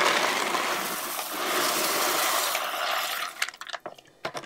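Small gravel poured from a bowl into a filter compartment, spilling onto a bed of charcoal with a steady rushing hiss for about three seconds, then a few last stones clicking down. The gravel is layered on top to keep the charcoal down.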